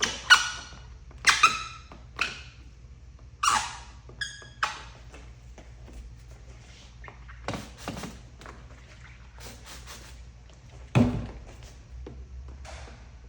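Short squeaks and rubs of wet paint protection film being worked over a car mirror cap, bunched in the first few seconds, then scattered light clicks and one louder thunk about eleven seconds in.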